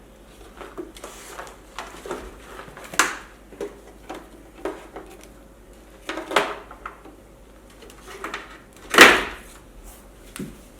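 Scattered knocks and clunks of electric-unicycle parts being handled and set down during disassembly, the loudest about nine seconds in, with smaller ones near three and six seconds.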